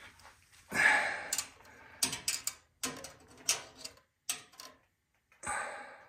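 A steel tape measure being handled and set against a chrome bumper: scattered sharp clicks and taps at an uneven pace, with a couple of short rustles.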